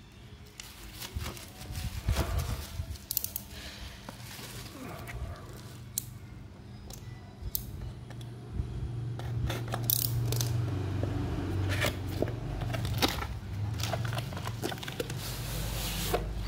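A cardboard drone retail box handled and cut open: the box rubbing and knocking in the hands, a small cutter blade slitting the seal, and the lid and contents sliding out, with scattered clicks and scrapes. A low steady hum sits underneath from about halfway through.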